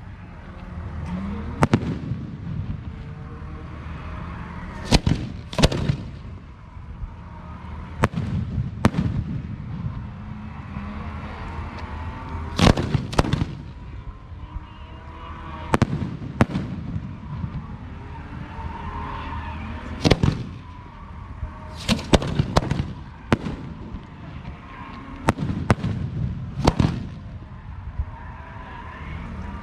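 Fireworks going off in a display: about a dozen sharp booms spread through, several of them in close pairs, over a steady low rumble.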